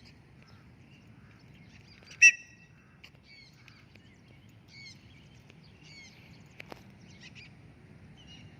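Birds calling: one short, loud squawk about two seconds in, over scattered faint chirps.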